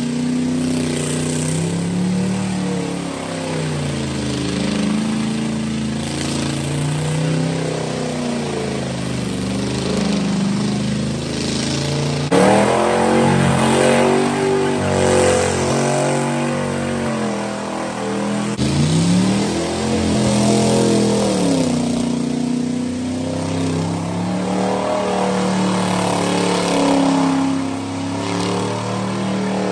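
Pickup truck engine revving hard during a burnout, its pitch climbing and dropping again and again as the driver works the throttle with the rear tires spinning; it gets suddenly louder about twelve seconds in.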